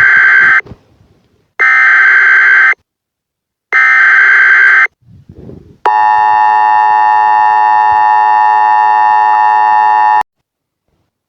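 Emergency Alert System header tones: three loud one-second bursts of SAME data tones about two seconds apart, then the steady two-tone EAS attention signal held for about four seconds before cutting off abruptly.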